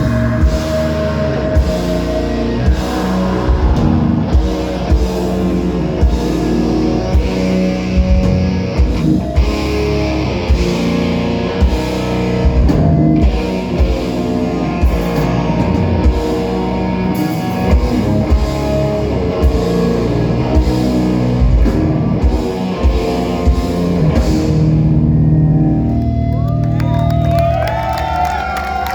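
Live heavy metal band playing, with distorted electric guitars and a drum kit hitting steadily. About 25 seconds in the drums stop and a final chord rings out, with high wavering tones bending up and down in pitch near the end.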